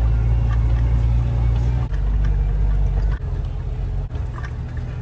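Vehicle engine and tyres heard from inside the cab while driving slowly along a rough dirt woods track: a steady low rumble that eases a little just past halfway, with scattered small knocks and rattles from the bumpy ground.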